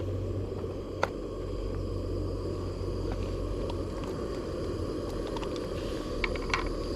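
Trangia camping stove burning under a pan of water with eggs poaching in it: a steady low rushing noise, with a sharp click about a second in and a few light clinks near the end.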